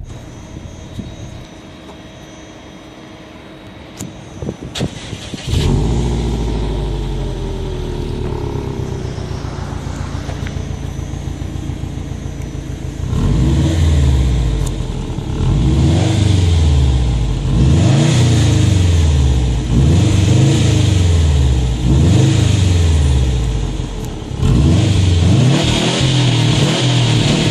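2013 Subaru STI's turbocharged 2.5-litre flat-four. After a couple of clicks it starts about five seconds in and idles steadily. From about halfway it is blipped repeatedly, each rev rising and falling, about one every two seconds.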